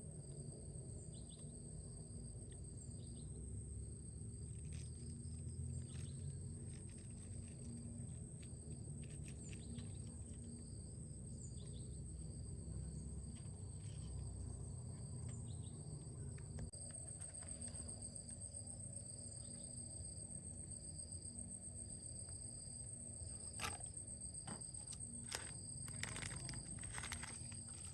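Insects trilling steadily in a high continuous buzz over a low rumble of outdoor background noise, with a few light clicks and knocks near the end.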